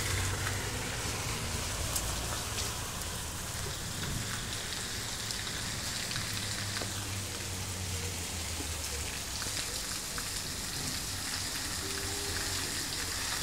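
Steady rain falling, an even hiss of drops, with a low rumble under it for the first two-thirds.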